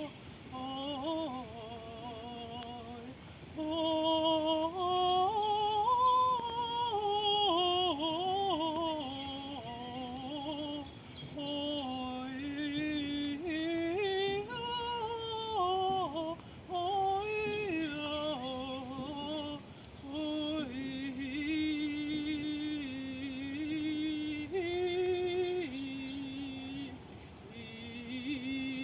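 A woman singing wordlessly in a free, improvised vocal channeling chant: long sliding notes with vibrato that rise and fall, broken by a few short breaths.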